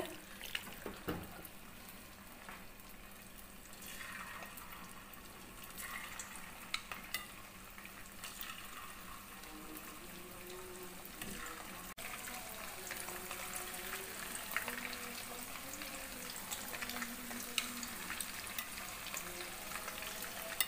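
Marinated chicken pieces frying in hot oil in a pan, a steady sizzle that grows louder as more pieces go in, with a few light clicks.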